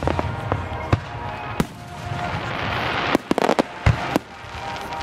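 Aerial fireworks shells bursting in sharp bangs. A hissing rush builds through the middle, cuts off a little after three seconds into a quick string of several bangs, and one more bang follows near four seconds.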